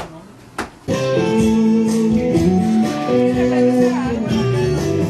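Music with guitar, starting abruptly about a second in after a couple of sharp clicks.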